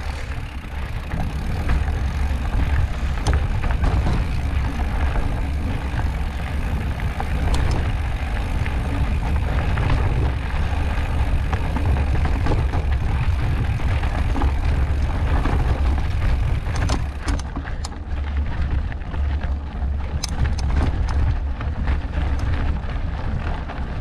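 Wind buffeting the microphone of a camera riding on a mountain bike, with the tyres rolling over sandstone slickrock and dirt. A steady low rumble is broken by scattered sharp clicks and rattles from the bike and loose stones, more of them in the second half.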